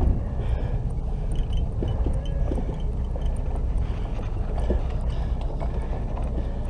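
Steady low rumble of a sportfishing boat under way at sea, with engine drone and the wash of wind and water.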